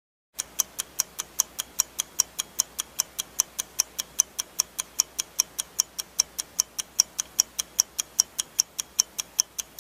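Countdown timer sound effect: a clock ticking fast and evenly, about five ticks a second, starting about half a second in.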